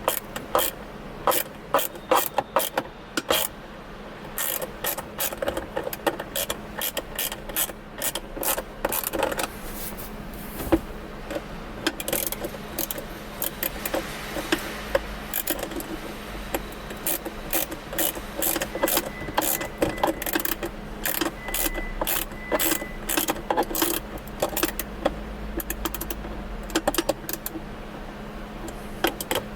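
Hand socket ratchet clicking in quick irregular runs as it turns the armrest screws of a Dodge Charger's center console lid, with short pauses as it is reset between strokes.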